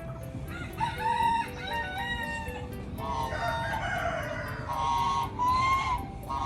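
Roosters crowing and chickens calling, several pitched calls one after another.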